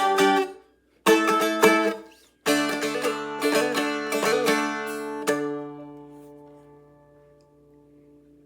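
Seagull Merlin strummed to close the song: a few chords broken by short stops, then a final chord about five seconds in that rings and slowly fades.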